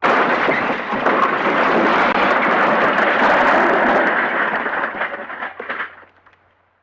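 The MGM 'elephant smash' cartoon crash sound effect: a loud smash that hits all at once, holds as a dense crashing noise for about four seconds, then breaks up into scattered crackles and dies away.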